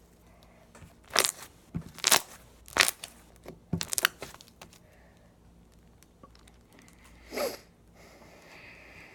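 Homemade slime being squeezed and poked, giving a run of sharp pops and clicks between about one and four seconds in, then one longer, lower squelch a few seconds later.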